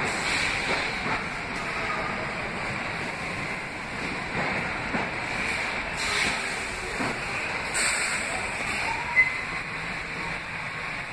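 R46 subway train running past along the platform: a steady rush and rumble of steel wheels on rail, with a short high squeal and a sharp click about nine seconds in.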